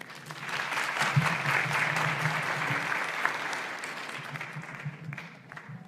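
Audience applauding: many hands clapping together, swelling within the first second and fading out near the end.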